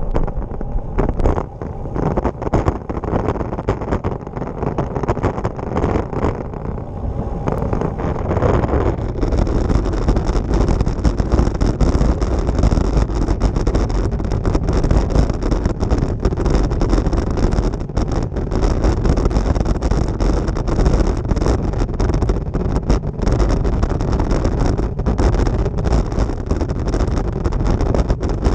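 Road bicycle and its handlebar-mounted camera rattling and shaking as the tyres ride over cobblestones, a dense, continuous jolting noise mixed with wind rush on the microphone. The rattle gets louder and rougher about nine seconds in and stays that way.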